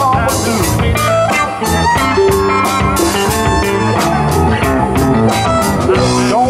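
Live blues-rock band playing an instrumental passage: electric guitars, with some notes bent in pitch, over bass guitar and a steady drum beat.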